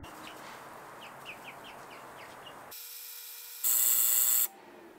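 Outdoor background with a run of short, high bird chirps. Then the hum of an InvisiClean ultrasonic cleaner, jumping for under a second to a loud, high-pitched buzz that cuts off suddenly.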